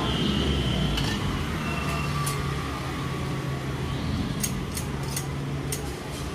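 Street ambience: a steady low machine hum with background noise, and a quick run of sharp clicks and clinks in the second half.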